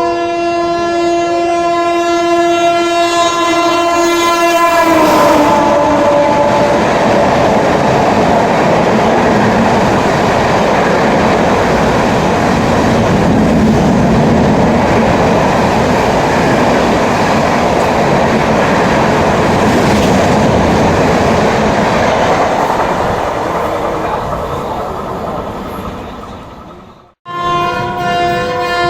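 A passing Indian Railways train sounds its horn, a steady chord of several notes whose pitch drops about five seconds in as the locomotive goes by. The rush of the coaches follows for about twenty seconds and fades away. The sound cuts off suddenly near the end and another train's horn starts up.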